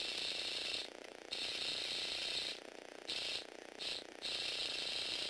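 Lego Technic motor and plastic gear train running with a high whir that cuts out for a moment about four times, then picks up again.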